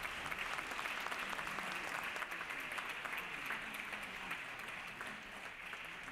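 A large group of people applauding, many hands clapping at once, the clapping slowly dying down toward the end.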